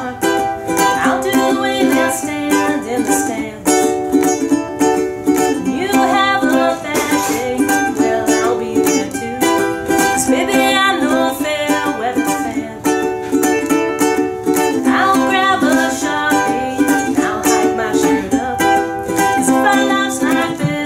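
Ukulele strummed in a steady rhythm, playing the chords of a song.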